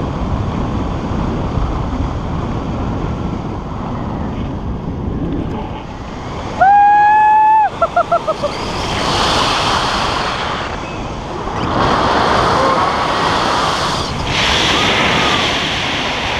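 Airflow rushing over the camera microphone mounted on a tandem hang glider, swelling louder at times as the glider flies its flip. About halfway through, a loud held cry lasting about a second, then a few quick laugh-like bursts.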